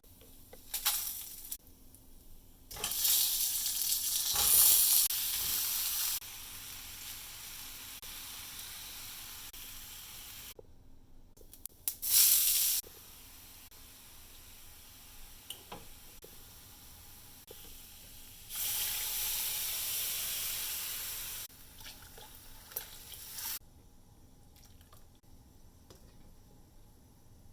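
Food frying in hot oil in a pan, sizzling in several separate spells that start and stop abruptly. The loudest spell is early on and a short loud burst comes about halfway through.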